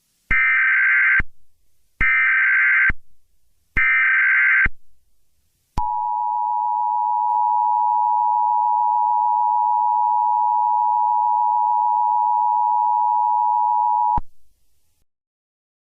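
Emergency Alert System broadcast tones announcing a civil danger warning. Three short bursts of SAME digital header data, each about a second long, come first. Then the two-tone attention signal is held steady for about eight seconds and cuts off sharply.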